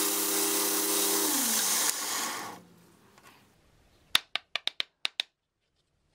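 Belt grinder sanding a block of composite cork against its abrasive belt, then switched off, its motor hum falling in pitch as it winds down. About two seconds later, a quick run of six sharp clicks.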